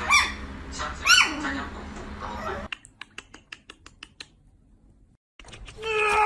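An animal's call about a second in, rising then falling in pitch, then a quick run of sharp clicks or taps, and near the end a new sound with steady tones starts.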